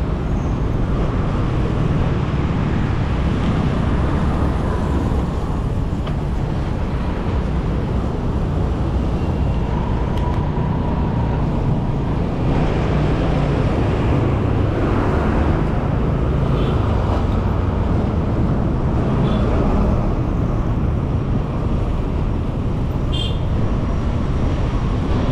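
Steady road traffic noise from cars, vans and motorbikes passing close by, heard while riding a bicycle through it, with a continuous low rumble of wind on the microphone.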